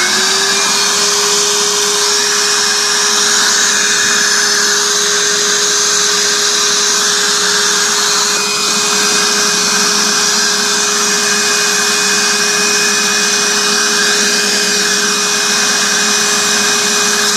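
Home-built 1,400-watt sawdust vacuum running at full speed: its electric motor and impeller make a steady high whine over a loud rush of air, settling at full speed just after the start.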